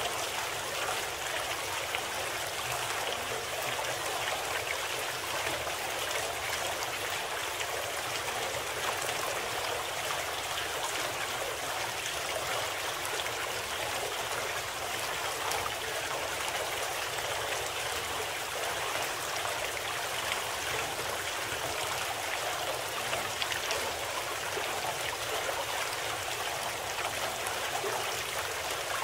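Steady sound of running water, like a flowing stream, an even rushing with no change, used as the masking sound of a subliminal audio program.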